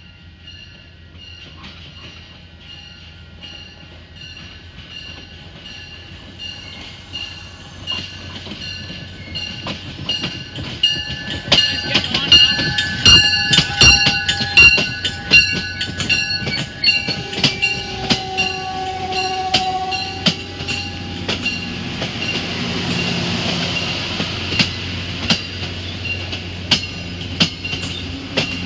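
MBTA commuter rail train approaching and passing close by. A high ringing repeats at even spacing as it nears, then the wheels click over the rail joints, loudest as the front of the train goes by about 12 seconds in, and the clicking continues as the coaches roll past.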